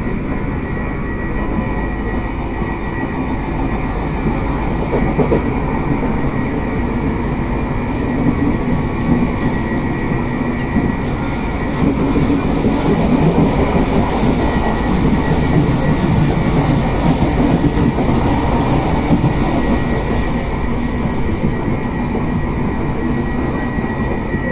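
RER B commuter train running between stations, heard from inside the car: continuous rolling and traction noise with a faint steady high tone, growing louder through the middle and easing near the end. The traction equipment makes an odd noise.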